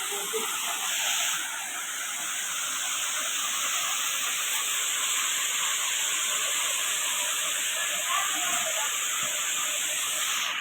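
Waterfall: water pouring and splashing into a pool, a steady rushing hiss.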